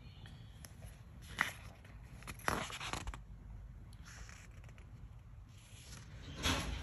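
A page of a book being turned by hand: a short paper rustle about a second and a half in, then a longer swish as the page slides over, and a brief soft handling sound near the end.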